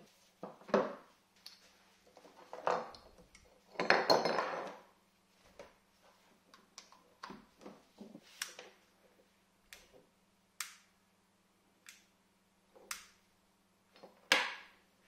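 Handling noises of electrical cords, plugs and metal clamps being moved and set down on a wooden table: a string of separate clicks and knocks, a longer rustling clatter about four seconds in, and a sharp click near the end, over a faint steady low hum.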